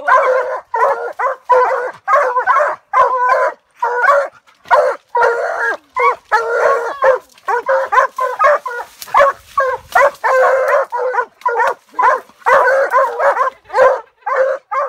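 Walker coonhounds barking rapidly and without letup while reared up against a tree trunk: the treed bark that tells hunters a raccoon is up the tree.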